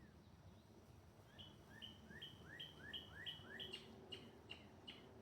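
A songbird singing faintly: a quick run of about a dozen repeated two-part notes, each a short upward slur followed by a higher clear note, about three a second.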